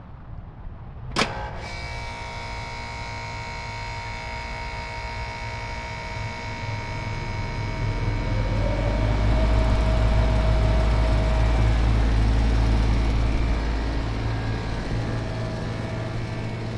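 Outdoor air-conditioner condensing units running, a steady mechanical hum with several steady tones. There is a sharp click about a second in. From about six seconds the low hum grows louder and a tone glides upward and then holds, before easing off near the end.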